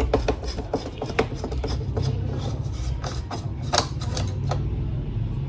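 Irregular clicks, ticks and scraping from hand work taking apart an LCD monitor's plastic casing and stand.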